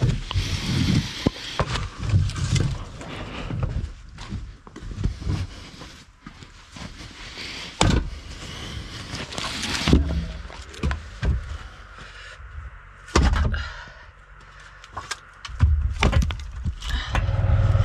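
Split firewood being pulled from a rack and stacked into the cargo area of an SUV: irregular wooden clunks and knocks as logs strike each other and the floor. Near the end a vehicle engine starts running with a steady low hum.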